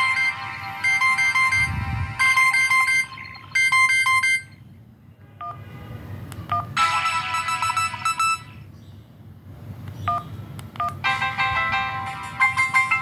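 T-Mobile mobile phone ringtones playing: electronic melodies of bright chiming notes in several bursts. The bursts are separated by two quieter gaps, about four seconds in and again about nine seconds in, where only a few short faint beeps are heard.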